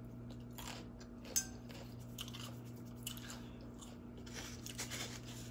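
Close-up chewing of a mouthful of crunchy raw salad, with irregular crisp crunches and a sharp click about a second and a half in. A cluster of crunches comes near the end.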